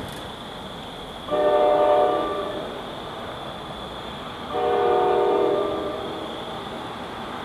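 NJ Transit train's horn sounding two blasts, each a chord of several steady tones: the first, about a second long, comes over a second in, and the second, a little longer, comes about four and a half seconds in.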